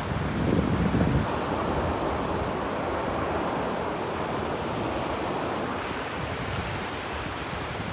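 Ocean waves washing onto a beach: a swell breaks loudly in the first second, then the surf settles into a steady hiss.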